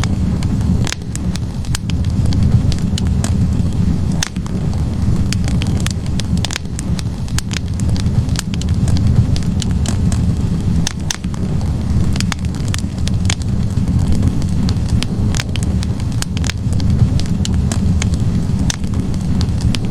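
Wood fire burning in a fireplace: a steady low rumble of flames with frequent sharp crackles and pops from the logs at irregular intervals.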